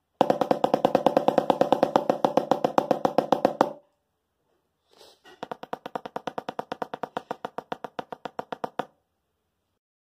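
Snare drum played with wooden drumsticks in quick, evenly spaced single strokes: a loud run of about three and a half seconds, then after a short pause a softer run of the same length, the single stroke roll rudiment.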